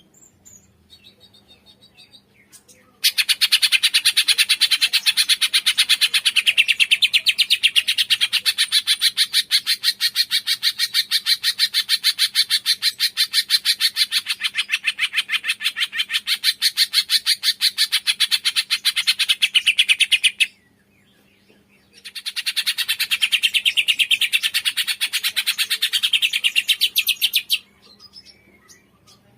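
Cungkok bird singing a long, fast, even trill of high-pitched notes that stops abruptly, then after a short pause a second, shorter trill.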